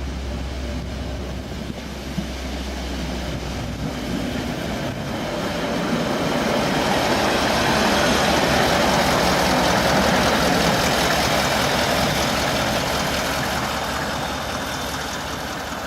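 A Harz narrow-gauge train passing by, growing louder to a peak about halfway through and then fading away.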